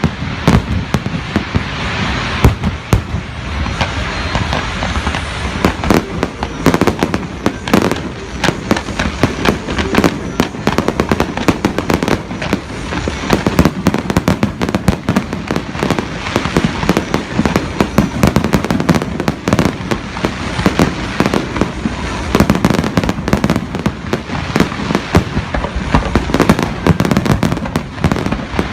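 A fireworks display: a continuous barrage of bangs and crackling, many shells bursting each second.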